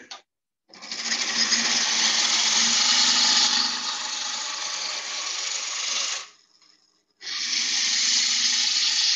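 A roughing gouge cutting into a spinning beech blank on a wood lathe, rounding it: a loud, dense hiss of shavings being sheared off. The cut starts under a second in, breaks off about six seconds in, and starts again about a second later.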